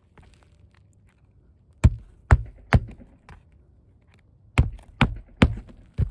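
Sharp, heavy knocks: three strikes about two a second, a pause of nearly two seconds, then four more strikes at the same pace.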